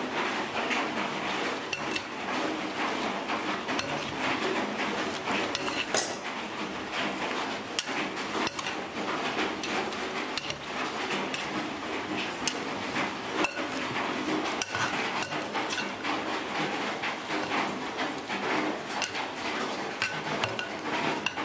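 A large metal spoon clinking and scraping against a pot while mixing raw eel pieces with seasonings and vegetables, in irregular clicks several times a second.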